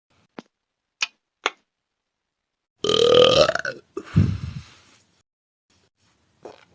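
A woman's long, loud belch, about three seconds in, that drops to a deeper, lower part near the end before trailing off. It comes after three short clicks in the first second and a half.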